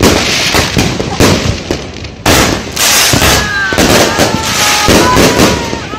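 Mr. Moneybags consumer firework cake firing shot after shot: repeated launch thumps and aerial bursts, with a loud burst about two seconds in.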